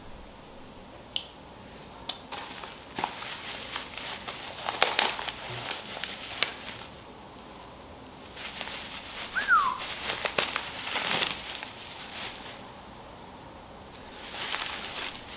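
Plastic bags and bubble wrap rustling and crinkling in bursts, with sharp clicks, as small hose clamps are unwrapped. One short falling whistle is heard about nine seconds in.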